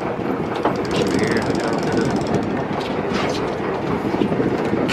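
Rapid, irregular mechanical clicking and clatter over a steady low rumble.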